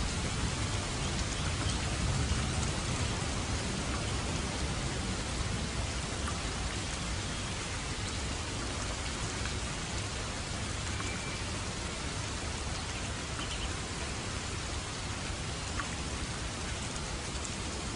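Steady rain falling, an even, dense hiss with a low rumble beneath it and a few single drops ticking through.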